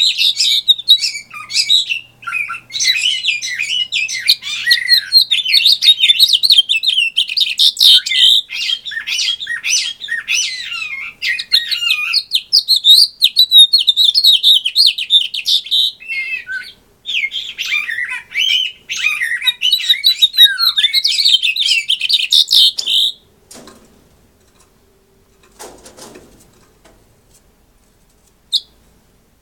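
A male house finch sings a long, rapid warbling song of jumbled chirps and trills, pausing briefly about two-thirds of the way through and stopping at about 23 s. It is followed by a faint rustle and one short chirp near the end.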